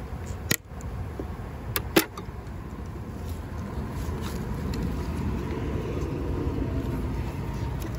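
Screwdriver prying the thin wooden cover off a honeybee package box, with two sharp snaps, about half a second and two seconds in, as the stapled board gives way. A steady low hum follows.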